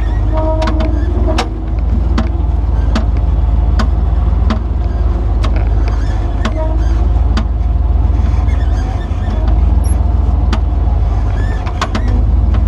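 Off-road vehicle's engine running with a low rumble as it crawls over rock, with frequent sharp clicks and knocks as the body and gear jolt on the rough trail.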